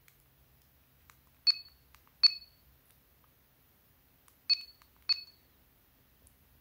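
70mai Smart Dash Cam Pro giving four short, high-pitched electronic beeps in two pairs, the beeps of each pair less than a second apart: the camera's confirmation tones as its buttons are worked.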